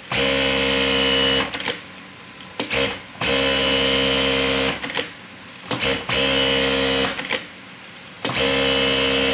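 Computerized single-needle industrial lockstitch sewing machine stitching in three short runs of about a second and a half each, with its top speed set to 4000 stitches per minute. Short clicks come in the pauses between runs.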